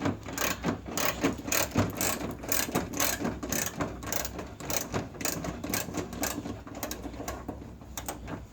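Hand ratchet wrench clicking in a quick, uneven series as a bumper bolt is backed out.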